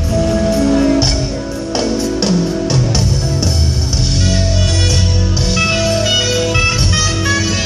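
Live smooth jazz band playing, with guitar to the fore over a moving bass line.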